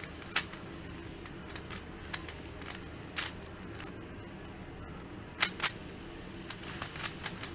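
Plastic Rubik's Cube clicking as it is handled: a few sharp, separate clicks, with two in quick succession about five and a half seconds in and lighter ticks near the end.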